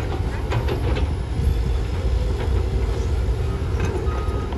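Heavy construction machine's engine running with a steady low rumble, with a few light knocks in the first second. Near the end a reversing alarm starts beeping.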